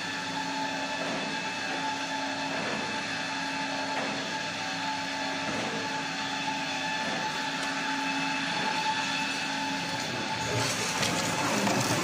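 Toilet paper converting machinery running: a two-lane log saw cutting machine and a rewinder, a steady mechanical hum with a few held tones. It grows louder and rougher about ten and a half seconds in.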